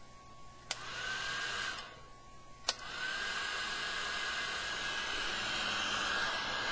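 A heat gun is switched on with a click, its fan whining up and blowing for about a second before it stops. It is clicked on again about two seconds later and then runs steadily, its motor whine rising and settling at an even pitch over the rush of air.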